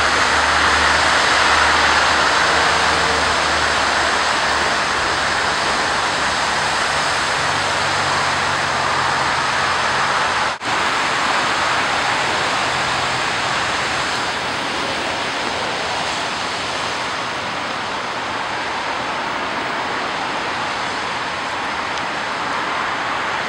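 Steady rush of rain-swollen creek water flowing through a channel. A low engine hum underneath fades out over the first ten seconds, and the sound breaks off for an instant about ten seconds in.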